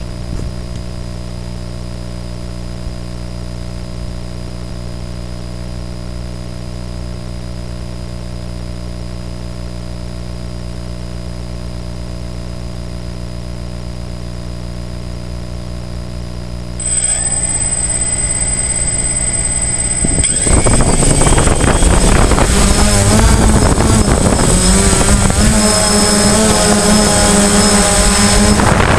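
DJI Phantom quadcopter's electric motors and propellers, heard from the drone itself: a steady multi-tone hum while it idles on the ground, a step up in pitch about 17 seconds in as the motors spin up, then from about 20 seconds a much louder, wavering whine mixed with rushing air as it lifts off and climbs.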